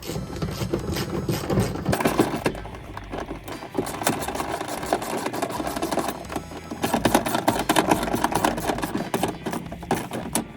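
Power drill running against metal, with a dense rapid rattle.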